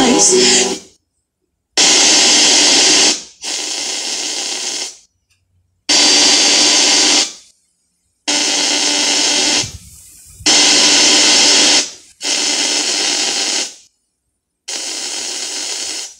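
Altomex WS-887K mini speaker's FM radio on automatic station search: about eight short bursts of hissy radio sound, each a second or so, cut off abruptly by silent gaps as the tuner jumps from frequency to frequency.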